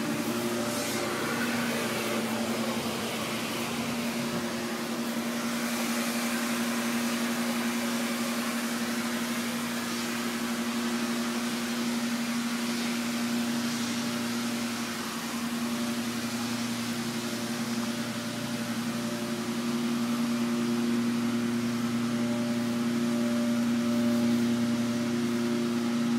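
Steady machinery hum: a constant low drone with a few fixed tones over a broad hiss, unchanging throughout.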